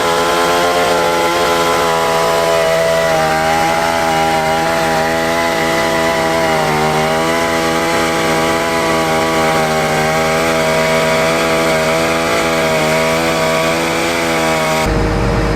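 A chainsaw engine running at a high, fairly steady pitch that wavers slightly as it works. About a second before the end it cuts abruptly to a lower engine rumble.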